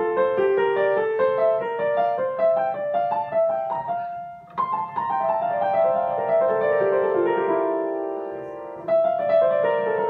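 Piano playing a repeating note pattern moved step by step down a scale, a practice sequence. It breaks off briefly about four seconds in, then picks up with further descending patterns.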